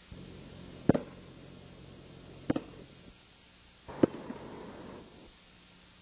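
A basketball hitting a hard surface three times, about a second and a half apart, each a sharp thump with a short ring.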